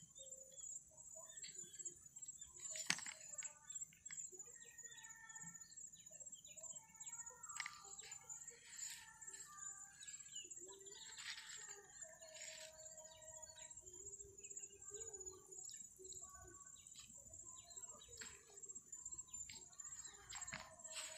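Faint riverbank ambience: a steady high-pitched insect buzz with scattered short bird chirps, and one sharp click about three seconds in.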